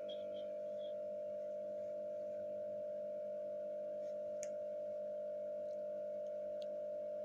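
A steady, even humming tone with a few faint clicks.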